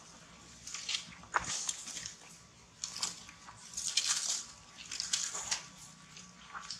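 Monkeys scrambling and running over dry leaf litter: a series of short, irregular rustling and scuffling bursts with a sharp click early on.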